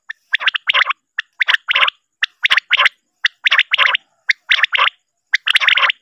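Male common quail song: phrases of two or three short rasping notes, repeated about once a second, six times.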